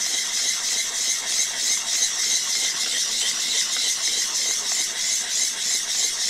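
Steel chip breaker from a hand plane rubbed back and forth on the coarse 300-grit side of a sharpening stone, a steady gritty scraping that swells slightly with each stroke. The edge is being honed to straighten its dinged edge with a secondary bevel.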